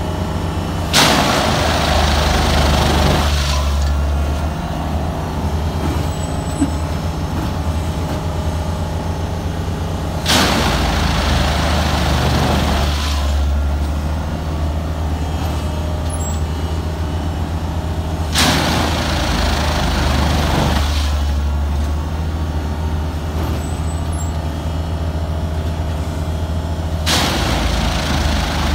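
Multiple tie tamper running with a steady low engine drone, broken four times by a loud rushing burst of two to three seconds, about eight seconds apart, as the machine goes through its tamping cycle.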